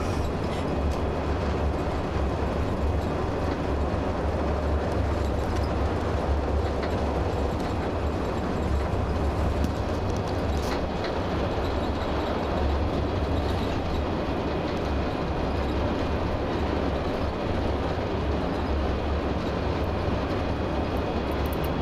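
Highway coach driving at speed, heard from inside the cabin: a steady low rumble of engine and road noise.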